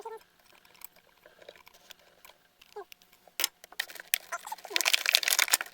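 Plastic toy packaging and pieces being handled: scattered clicks and a few short squeaks, then dense crinkling and rattling near the end.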